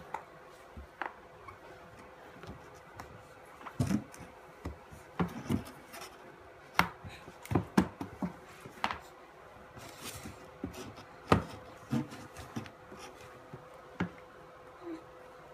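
A baby's hands patting, pushing and knocking on a large empty white plastic bin lying on its side, giving irregular taps and knocks, with a cluster of louder knocks in the middle.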